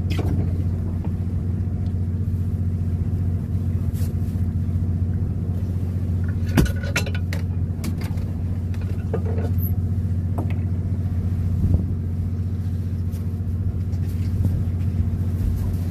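Steady low drone of the fishing boat's engine running, with a sharp knock about six and a half seconds in and another near twelve seconds.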